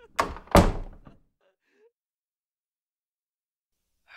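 A door being shut: two heavy thuds close together, the second the louder, dying away within about a second, followed by silence.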